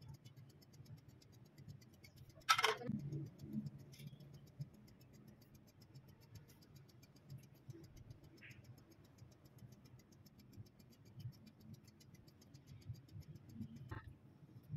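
Steady, faint ticking of a countertop electric oven's wind-up timer, about five ticks a second, over a low hum. About two and a half seconds in there is a short, louder clatter.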